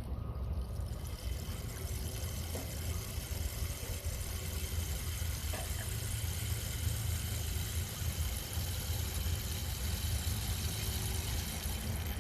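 Rainstick made from a dried cactus stalk, tilted so its pebbles trickle down through the tube in a steady rain-like hiss. A constant low rumble runs underneath.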